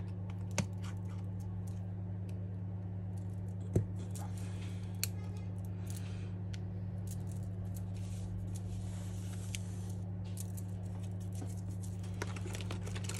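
Small metal parts and tools being handled at a repair bench: a few sharp clicks and light scraping as pieces are set down on a mat, over a steady low hum.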